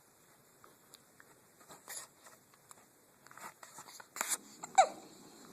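A three-week-old newborn baby hiccuping: several short hiccups, the loudest near the end with a brief falling squeak.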